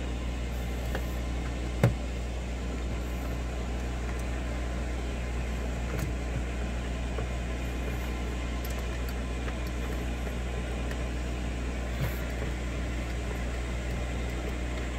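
A steady low mechanical hum, with a sharp click about two seconds in and a fainter one later on as a hand screwdriver turns a mounting screw into a metal TV bracket.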